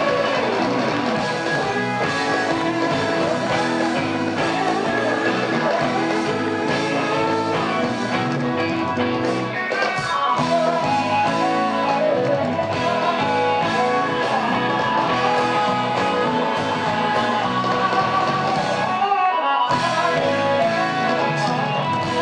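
Live electric blues-rock jam: a pedal steel guitar and a Les Paul-style electric guitar playing lead together over the band, the steel's notes sliding in pitch. The low end drops away for a moment near the end.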